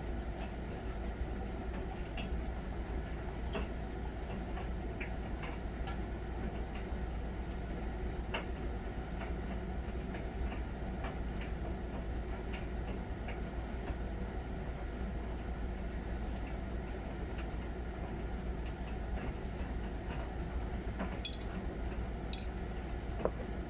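Miele Novotronic W921 front-loading washing machine washing: the drum turns with water sloshing and wet laundry squishing over a steady low hum, with scattered small clicks and drips.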